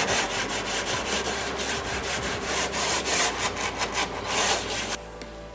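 Rapid back-and-forth scrubbing strokes on a refrigerator's surfaces, several strokes a second, stopping abruptly about five seconds in.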